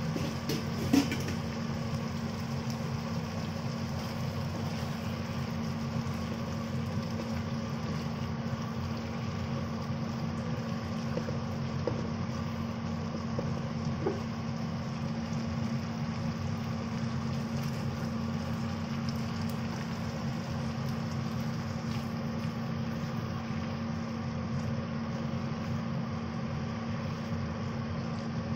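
Steady mechanical hum with one constant low tone, with a single sharp clink about a second in and a couple of faint knocks later on.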